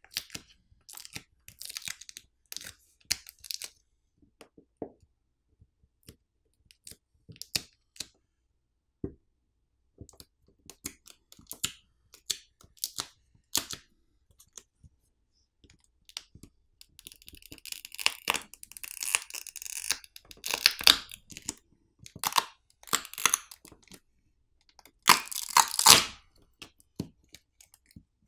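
Adhesive pull pouch being peeled away to free a smartphone's lithium polymer battery: scattered crackles and clicks, with longer stretches of peeling and crinkling film a little past halfway and again near the end.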